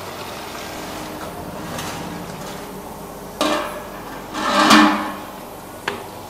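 Knocks and scraping from a stick working in a water-filled bucket: a sudden knock about three and a half seconds in, a louder, longer scrape about a second later, and a short sharp click near the end, over a steady low hum.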